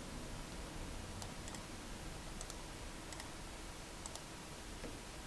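Faint, scattered clicks of a computer mouse and keyboard, about eight over a few seconds, above a steady low hiss.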